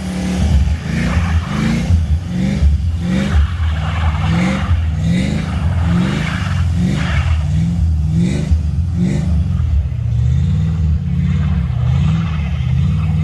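Vehicle engine revving in a string of short rises in pitch, over and over, while driving through deep snow, with repeated bursts of rushing noise over the top.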